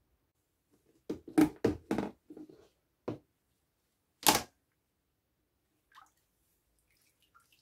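A quick series of sharp knocks and clicks, then one louder sharp knock about four seconds in, from a plastic tub of rust remover being handled on a workbench. Near the end comes a faint sound as a gloved hand reaches into the liquid.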